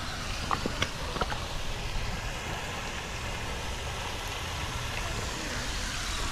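Steady outdoor background noise, a low rumble with a hiss over it, with a few faint clicks in the first second and a half.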